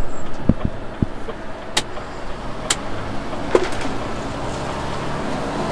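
Cab noise of an HGV tractor unit pulling out of a junction and driving off: steady engine and road noise, with a few sharp clicks and knocks in the first four seconds.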